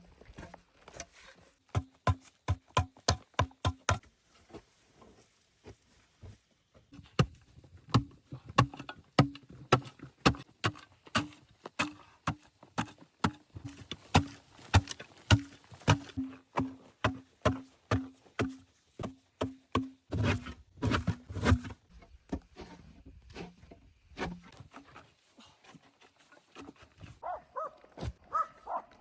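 Repeated knocks in runs of about two a second, with pauses between the runs, each knock carrying a short low ring.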